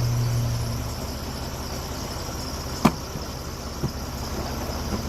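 Sawmill engine running steadily with a low drone, not yet cutting; a sharp click a little before three seconds in and a fainter one about a second later.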